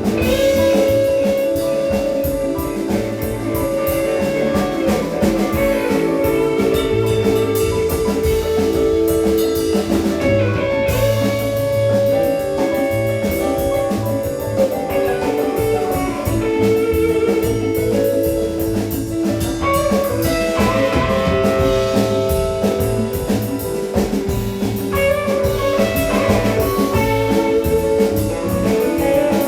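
Live band playing an instrumental jam: guitar holding and bending long notes over a steady drum kit groove.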